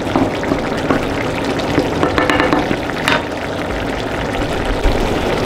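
Mushroom cream sauce simmering and sizzling as it reduces in a cast-iron pan, a steady hiss, with a few clicks and knocks of the spoon and cookware around the middle.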